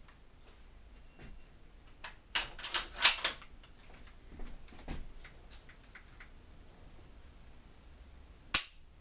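Mosin-Nagant 91/30 bolt-action rifle being worked by hand: a quick run of metallic clicks and clacks as the bolt is lifted, drawn back and pushed home, then a few lighter clicks. Near the end comes one sharp snap as the trigger is pulled on an empty chamber and the striker falls (dry fire).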